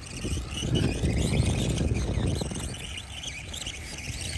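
Wind buffeting the microphone, with the faint, wavering whine of a SkyRC SR5 1/4-scale electric RC dirt bike's motor rising and falling as it is throttled.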